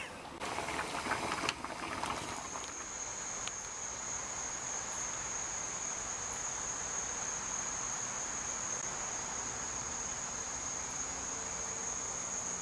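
A brief loud burst of noise near the start, then a steady, shrill drone of insects that sets in about two seconds in, over a faint even hiss.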